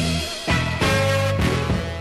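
Electric blues band playing an instrumental passage: a held, wavering lead note over bass and drums, with a brief drop in the sound about half a second in.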